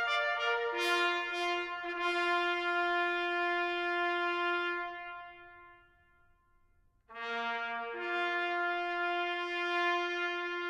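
A lone bugle playing a slow call in long held notes. The first phrase dies away about halfway through, and after a short pause the next begins on a low note that steps up to a long held one.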